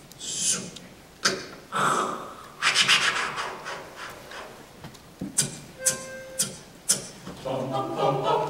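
Beatboxer's vocal percussion into a microphone: breathy hisses and sharp clicks with a short pitched buzz about six seconds in. A cappella group voices come in singing near the end.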